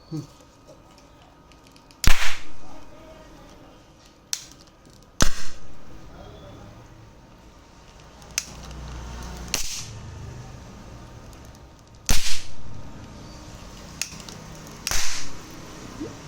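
A series of sharp, loud pops of hydroxy (hydrogen-oxygen) gas from the machine being ignited, five strong ones a few seconds apart, each dying away quickly, with a couple of fainter clicks between.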